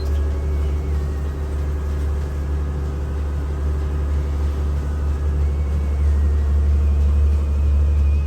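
Boat's inboard diesel engine running steadily: a low, even rumble.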